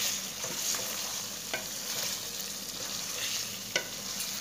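Egg and potato curry sizzling in a metal pan while a wooden spoon stirs it, with two light knocks of the spoon against the pan, about a second and a half in and near the end.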